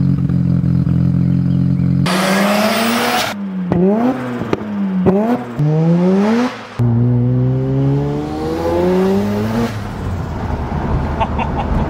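Mazda FD RX-7's street-ported twin-rotor 13B rotary engine through an RE Amemiya cat-back exhaust. It idles steadily, with a loud rush about two seconds in. The revs then rise and fall quickly several times, and later climb long and steadily under acceleration.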